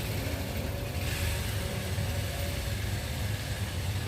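Car engine running steadily, a low rumble with a hiss of traffic-like noise over it.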